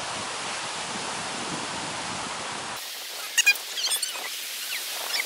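Steady outdoor hiss. About three seconds in the sound cuts abruptly, and several short, high-pitched squeaky calls follow.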